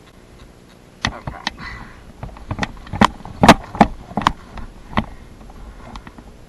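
About a dozen sharp knocks and snaps at irregular intervals over a few seconds, loudest in the middle.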